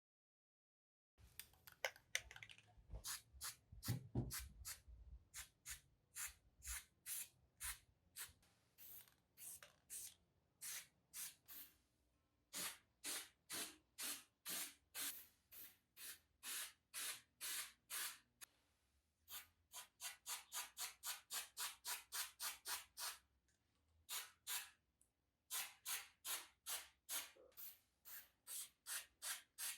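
Rhythmic hand scrubbing strokes on the mill's iron, about two to three a second, with a few short pauses and a faster run past the middle.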